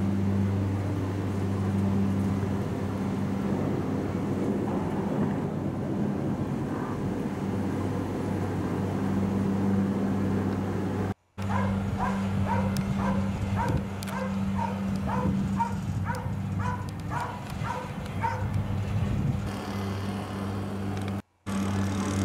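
Steady low hum of a cable-car gondola in motion, heard from inside the cabin, cutting out briefly twice. Through the middle, a run of short high-pitched sounds comes about twice a second for several seconds.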